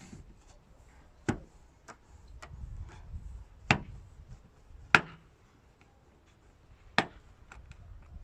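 Sharp clicks and knocks from hands working on a car door's plastic trim parts: four loud ones a second or two apart, with fainter ticks between.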